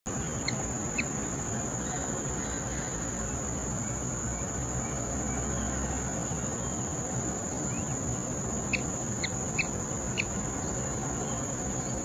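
Steady high-pitched insect trill running on without a break, over a soft background hiss. Short chirps cut in twice near the start and four times in quick succession near the end.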